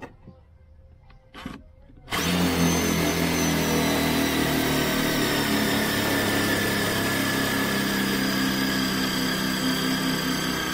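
Dowen Pagio cordless impact driver starting about two seconds in and running steadily and hard, hammering a screw into hardwood. The screw goes in slowly: the tool struggles in the hard wood.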